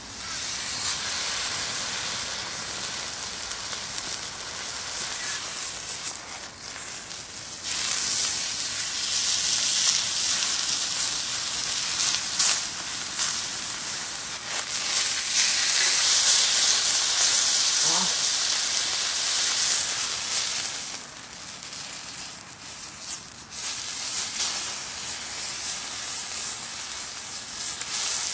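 A thick beef steak sizzling on a hot griddle. The hiss starts suddenly as the meat goes onto the pan and grows louder about eight seconds in, easing off briefly near the end.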